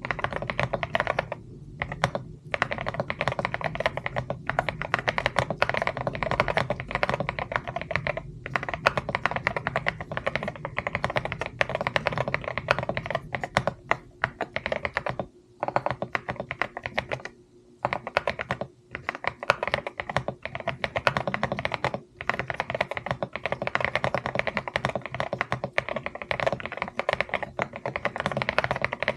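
Continuous fast typing on a CIDOO ABM066 Alice-layout mechanical keyboard with Akko Bun Wonderland keycaps: a dense run of keystrokes broken by a few brief pauses.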